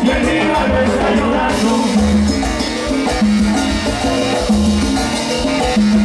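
Live salsa band playing, with electric bass, piano and percussion in a steady dance rhythm.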